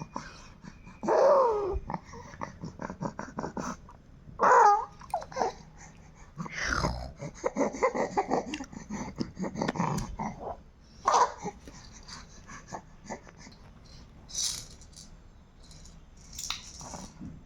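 A baby with a cough and cold fussing: several short whining cries that fall in pitch, between runs of quick, noisy breaths.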